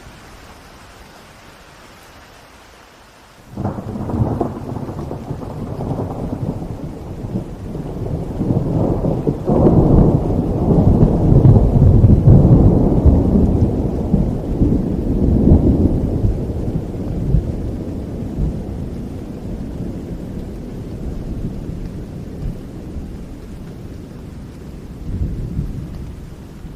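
Steady rain, then a sudden clap of thunder a few seconds in that rolls into a long, deep rumble. The rumble is loudest in the middle and slowly dies away, with a smaller swell near the end.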